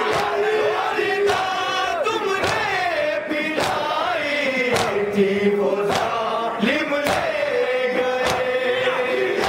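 Male voices chanting a nauha, a Shia Muharram lament, together through a microphone, the lead voice holding long notes. Sharp slaps of hands on chests (matam) keep time about once a second.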